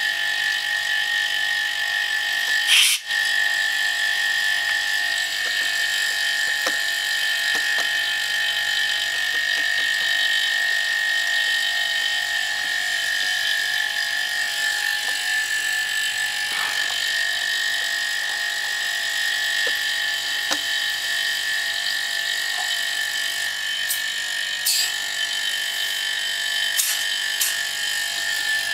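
Two refrigerator compressors used as an air compressor running steadily while charging an air tank: a constant hum with a high whine. There is one sharp knock about three seconds in, and a few light metallic clicks near the end as the fittings are handled.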